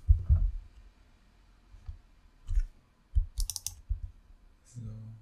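Clicks and low knocks from working a computer mouse and keyboard at a desk: a dull thump right at the start, scattered soft knocks, and a quick run of sharp clicks about three and a half seconds in.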